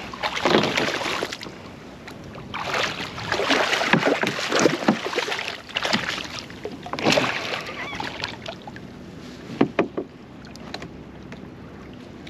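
A small hooked fish splashing at the water's surface beside a canoe as it is reeled in and lifted, in irregular bursts of splashing with a few short sharp splashes near the end.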